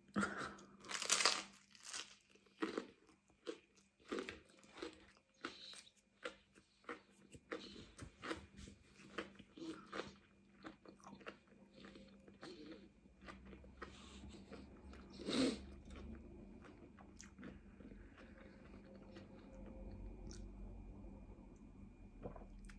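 Crunchy garlic bread being bitten and chewed close to the microphone, a short crunch about every half second. The crunches thin out and grow softer after about twelve seconds, with one louder sound about two-thirds through.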